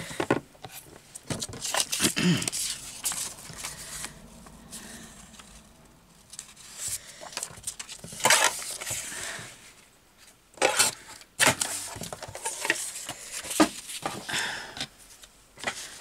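Paper being cut on a sliding-blade paper trimmer: a short scraping stroke of the blade about eight seconds in, amid paper rustling and handling clicks.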